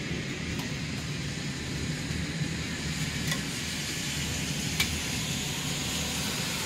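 Steady rain in a thunderstorm, with a low, steady rumble underneath and a couple of faint ticks, about three seconds in and near five seconds.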